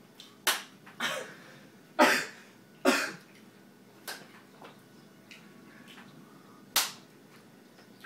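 A wooden spoon, swung from one player's teeth, knocks against the other player's head. The knocks come as a run of sharp smacks, four in the first three seconds and one more near the end, with a few lighter taps between.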